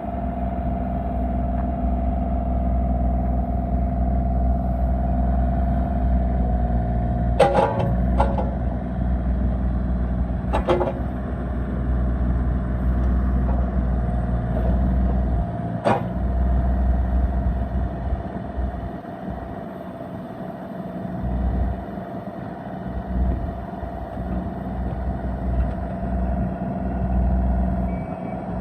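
Bobcat E32 mini excavator's diesel engine running steadily with a constant whine over it. A few sharp knocks come through, the loudest about seven and a half seconds in, with others around eleven and sixteen seconds.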